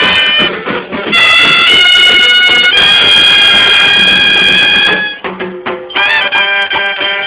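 Loud festival wind music: long held high notes for several seconds, a brief quieter dip with lower notes about five seconds in, then quick short repeated notes near the end.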